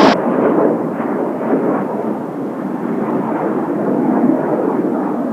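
Distant roar of Blue Impulse Kawasaki T-4 jets' twin turbofan engines: a steady rushing rumble that swells and eases slightly.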